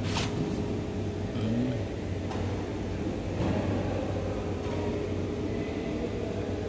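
A steady low mechanical hum over a noisy background, like traffic or a running motor, with a sharp click right at the start.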